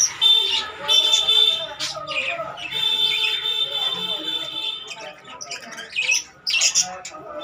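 Budgerigars chirping and squawking in quick, sharp calls. A steady high whistling tone is held twice, about a second and then nearly two seconds long.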